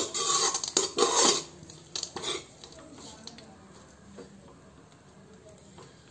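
Perforated metal spatula scraping and stirring poha around a metal kadhai, with several loud scrapes in the first couple of seconds. Only faint stirring follows.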